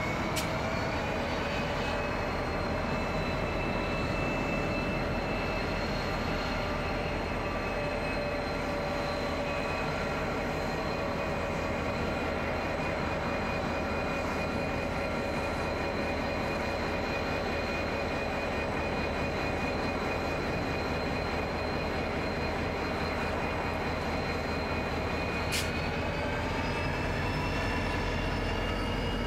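Two diesel-electric freight locomotives, a G class and an 81 class, pulling a loaded grain train away from a standstill, their engines running steadily under load. A high whine rises in pitch just after the start and again near the end as the engines work harder, with a brief sharp click at each of those moments.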